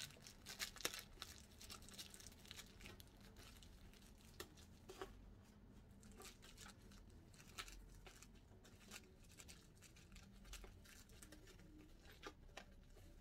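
Faint rustling and light clicks of a fabric wig cap being handled and folded, busiest in the first second or two, then only an occasional tick.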